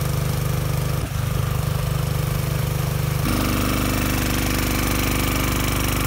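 Honda GCV160 single-cylinder four-stroke lawnmower engine driving a Johnson outboard lower unit, running steadily at top end with the boat under way. About three seconds in, the rush and splash of water at the lower unit comes up louder alongside the engine.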